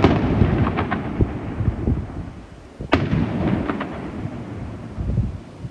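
Fireworks going off: two sharp bangs about three seconds apart, each followed by a short spatter of crackles, with a low rumble between them.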